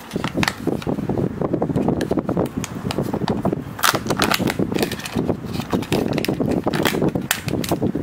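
Hands handling a plastic Kinder Joy toy capsule and peeling its printed plastic seal off: plastic crinkling, crackling and clicking, thickest around the middle and near the end, over a steady low rushing noise.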